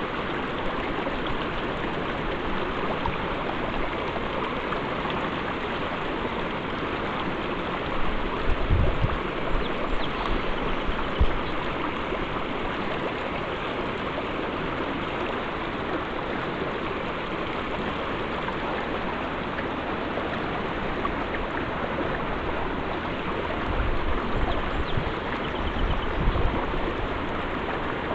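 Steady rush of the Snake River's flowing water. Low rumbling knocks come twice, about a third of the way in and again near the end.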